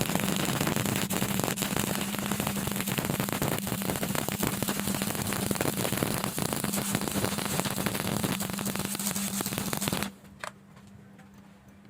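Electric welding arc crackling steadily over a low hum for about ten seconds, then cutting off abruptly as the arc is broken.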